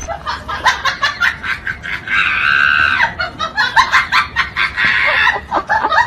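Rapid, cackling laughter in quick pulses, with a longer held shriek about two seconds in.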